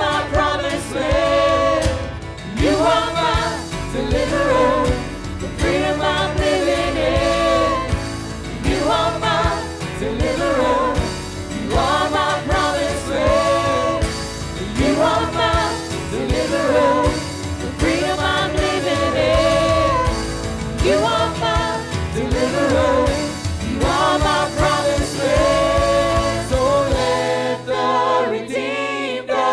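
Worship team of mixed men's and women's voices singing a gospel hymn in harmony, backed by a band with guitars, bass and a steady beat. Near the end the beat and bass drop out, leaving mostly the voices.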